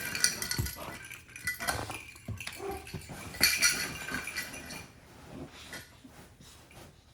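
Jingling of a cat toy with a bell and a small ball inside as a Rottweiler puppy chews and shakes it, coming in bursts, loudest about three and a half seconds in, then dying away.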